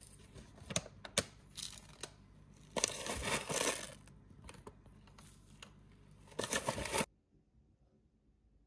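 Metal spoon clicking and scraping in a plastic yogurt cup, then a crunchy granola topping shaken in with a rustling rattle from a crinkly plastic bag about three seconds in. Another short rustle comes near the end, then the sound cuts off suddenly.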